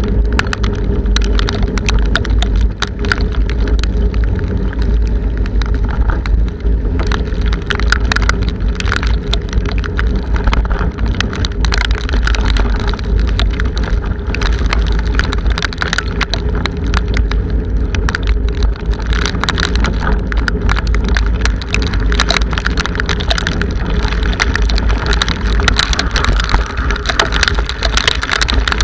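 Strong wind buffeting the microphone of a bicycle-mounted camera as a heavy, constant low rumble, with raindrops striking the camera as dense sharp clicks throughout.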